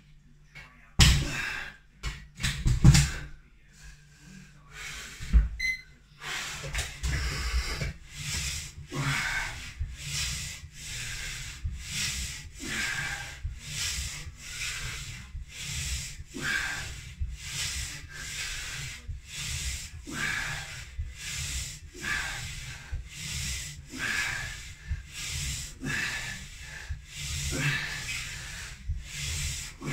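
Home lat pulldown machine worked in repeated reps. The cable runs over its pulleys and the 50 kg weights and sled scrape and rub with each pull, in a steady rhythm of a stronger stroke about every two seconds. There are a few loud knocks in the first seconds as the bar is taken up.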